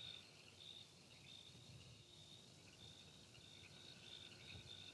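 Near silence: faint night-time crickets chirping in a steady pulsing rhythm.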